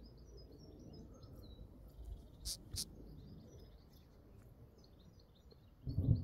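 Small birds chirping again and again over a low, steady rumble of wind, with two sharp ticks about two and a half seconds in. Near the end a sudden, much louder low rumble sets in.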